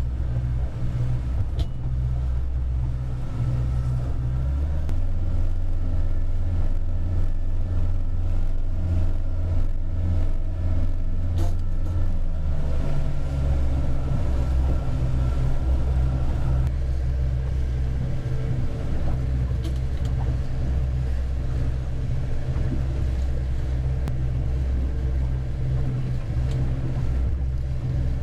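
A small motorboat's engine running steadily underway, heard from inside the pilothouse, with a low, steady note. The engine note shifts about 5 seconds in and again about 12 seconds in, and the higher part of the sound changes near the middle.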